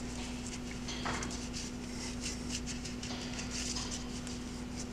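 Faint rustling and small creaks of hands cinching a half hitch tight in a three-strand fiber rope, over a steady low hum.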